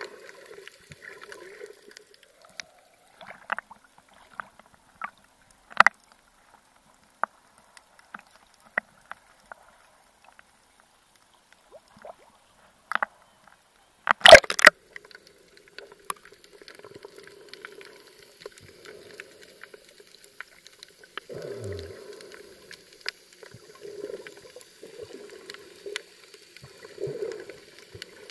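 Muffled water sound through a waterproof action camera underwater, with scattered sharp clicks and pops. About halfway through a loud splash as the camera breaks the surface, then muffled sloshing with low swells every couple of seconds.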